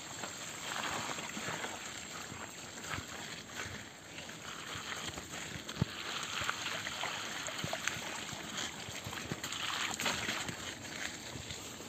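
Mountain bike tyres rolling through wet mud and shallow puddles, a steady wet splashing hiss with many small scattered clicks and knocks.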